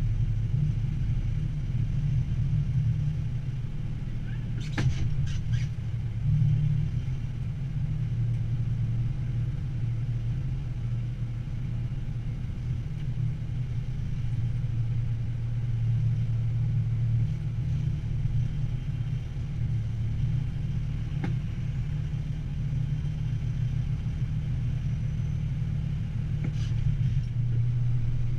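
Military truck's diesel engine running at low revs, heard from inside the cab as the truck moves slowly: a steady low drone, with a couple of faint clicks about five seconds in and again near the twenty-one-second mark.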